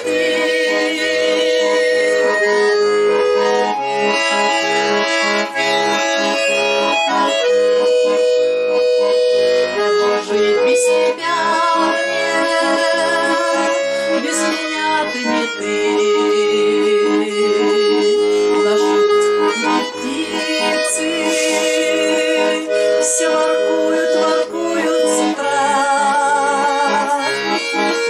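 Garmon, the Russian accordion, playing an instrumental interlude of the song's melody: sustained held notes changing every second or two, with a wavering tremolo on some notes.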